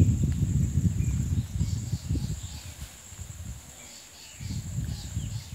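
Insects buzzing in a steady high drone, over a low rumbling noise that is loudest for the first two seconds, fades, and returns near the end.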